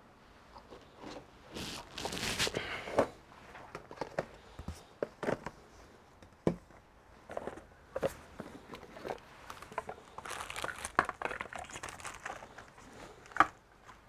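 Hands handling laptop parts and material on a workbench: rustling and crinkling, with scattered sharp clicks and taps. The longest rustles come about two seconds in and again about ten seconds in.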